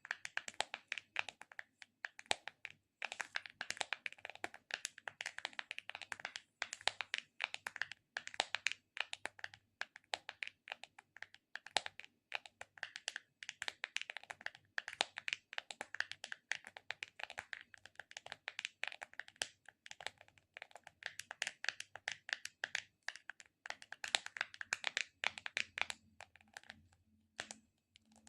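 Close-miked ASMR handling sounds: fingers working a tacky trigger object, making a fast, dense run of small sticky crackles and clicks, with a few short pauses and a longer one near the end.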